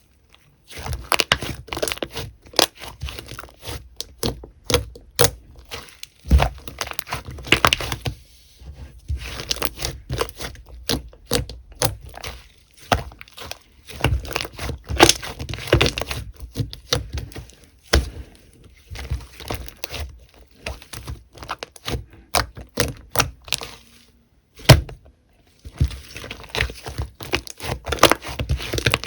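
Slime being squeezed and worked by hand close to the microphone, giving dense runs of sharp pops and crackles with a few short pauses.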